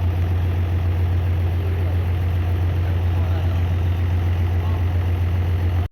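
A heavy engine running steadily with a strong deep hum.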